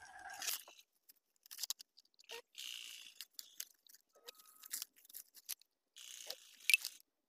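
Bubble wrap, packing tape and plastic lure packets crinkling and rustling as a parcel is unpacked by hand, in short irregular bursts with small clicks, the sharpest one near the end.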